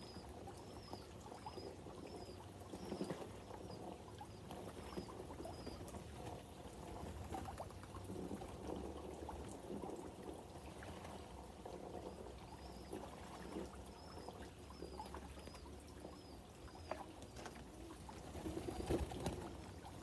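Faint splashing, rustling and small knocks from pigeons moving about a loft, with two runs of short high peeps repeating about twice a second.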